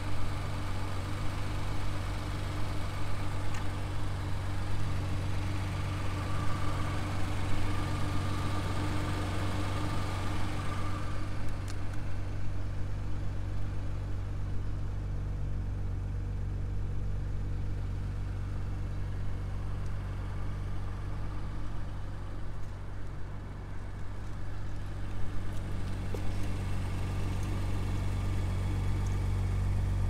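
Audi RS5 Sportback's 2.9-litre twin-turbo V6 idling with a steady low hum.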